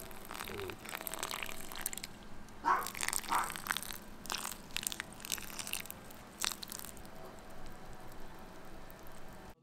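Water poured from a metal bottle splashing onto potting soil and squash leaves in a terracotta pot: an irregular patter and crackle, heaviest in the first half.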